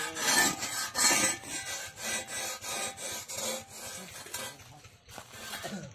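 A metal hoe blade scraping the singed hair and charred skin off a pig carcass, in repeated rasping strokes about two a second.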